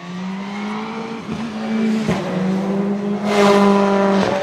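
Rally car engine at high revs, approaching and passing, its note holding high with short breaks about one and two seconds in and loudest about three and a half seconds in.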